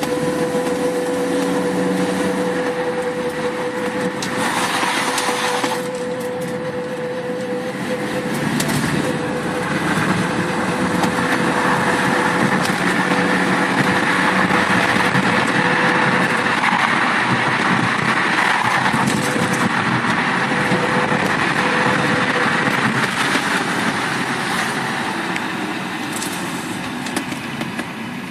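Volkswagen Jetta Mk4 on the move: a steady humming tone over continuous road and tyre noise. The tone fades about eight seconds in and then comes and goes faintly. The owner's note says this hum stops when the brakes are applied, and a caliper replacement has not cured it.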